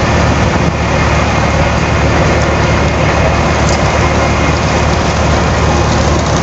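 Diesel passenger train idling at a station platform: a steady engine rumble with a constant hiss over it.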